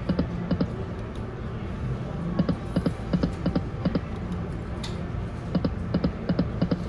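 Slot machine's reel sounds as the reels spin and stop: clusters of short, sharp electronic ticks, a few in quick succession, repeating every second or two over a low casino hubbub.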